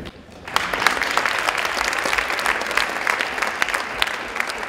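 An audience breaks into applause about half a second in: many hands clapping in a dense, steady patter.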